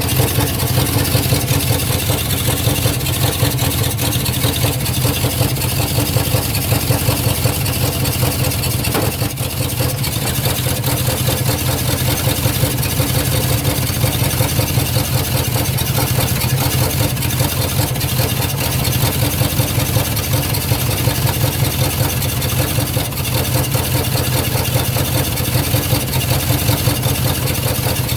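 1999 GMC Yukon's V8 engine running steadily, with a single pop about nine seconds in: the unexplained popping the owner is trying to track down.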